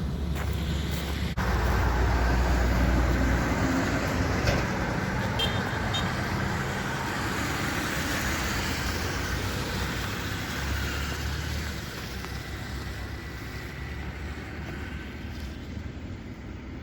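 JCB 4CX backhoe loader's diesel engine running steadily. It gets louder about a second in, then gradually fades toward the end.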